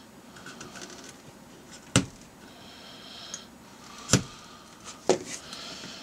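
X-Acto knife scratching and slitting the plastic insulation of a ribbon cable on a circuit board, with three sharp clicks spread through.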